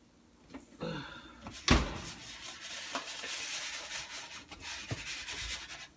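Kitchen handling noise: a sharp knock about two seconds in, then about four seconds of steady scraping.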